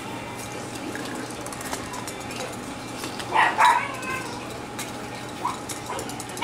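Cockapoo puppies yipping: a quick run of short, high yips a little past the middle, then one or two weaker ones, with faint light clicks in between.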